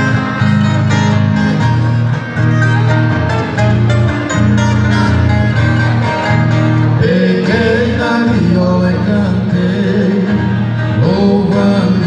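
Música caipira played on a viola caipira and an acoustic guitar, with steady plucked picking over a bass line; male voices come in singing about seven seconds in.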